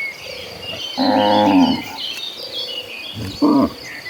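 Cattle mooing: one loud call about a second in, lasting most of a second, and a shorter call near the end. Many short high chirps run underneath.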